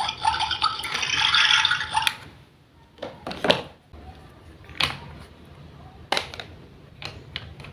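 Water running or pouring for about two seconds, then stopping abruptly, followed by a handful of separate light knocks and clicks.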